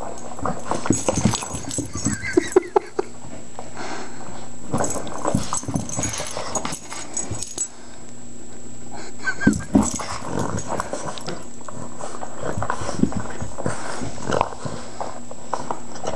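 Boston terrier playing with a tennis ball and a rubber squeaky toy on a carpet: irregular scuffling, pawing and mouthing of the toys, with short dog vocal sounds mixed in.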